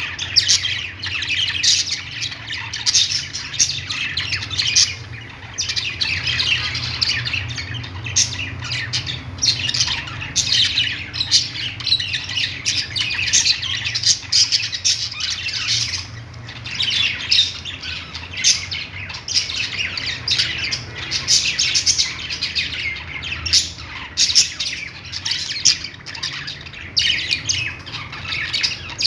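Several budgerigars chirping and chattering without pause: dense, overlapping high-pitched calls, over a faint steady low hum.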